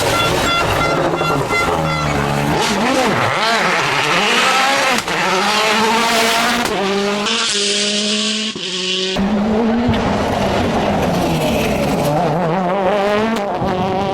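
Rally cars' 1.6-litre turbocharged four-cylinder engines at full throttle, the pitch climbing through each gear and dropping back at every shift, with lifts and re-accelerations. There is an abrupt change about nine seconds in, as another car takes over.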